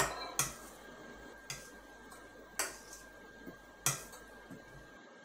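Stainless steel bowl clinking against the counter and the hand as oats and curd are mixed in it by hand: a few sharp, separate clinks about a second apart.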